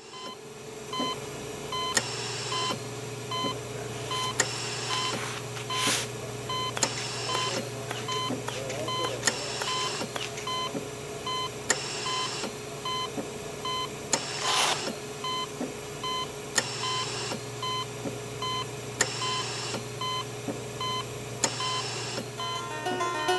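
Short electronic beeps repeating over a steady low hum, with sharp clicks and brief hissing bursts at fairly regular intervals; the loudest hiss comes about fifteen seconds in.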